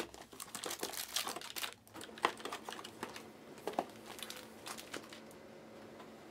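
Cardboard and plastic packaging of trading-card hobby boxes crinkling and rustling as the boxes are handled and opened, with scattered sharp clicks and taps. It dies down near the end.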